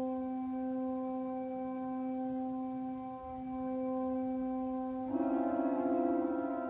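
Pipe organ holding a sustained chord of steady notes. About five seconds in, more notes come in and the sound starts to waver with a beating pulse.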